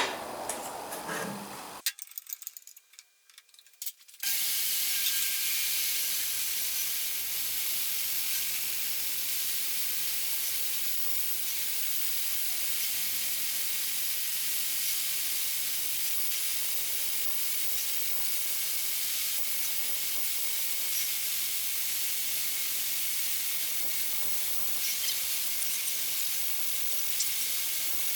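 A woodworking machine runs with a steady, even hiss while padauk is milled to thickness. Before that, about two seconds in, there is a brief gap of near silence.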